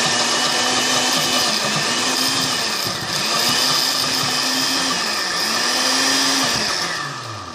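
Countertop blender running on a coconut and banana smoothie, its motor pitch sagging and recovering several times, then winding down near the end.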